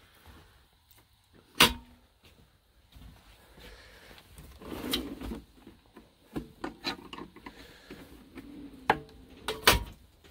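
Metal sockets and tools being handled, giving scattered sharp clicks and knocks. The loudest come about one and a half seconds in and near the end.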